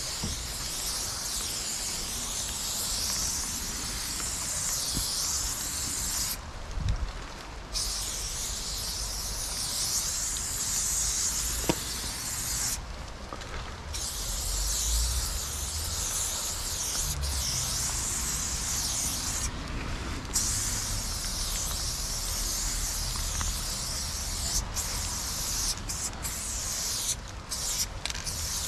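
Aerosol spray-paint can hissing as black paint is sprayed onto a brick wall: long sprays broken by brief pauses, with several quick short sprays near the end.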